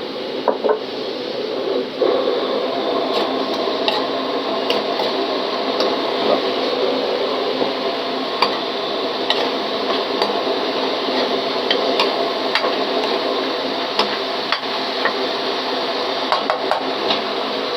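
Pork being stir-fried in a pan with its seasoning sauces: a steady hiss under a metal spatula that clinks and scrapes against the pan every second or so.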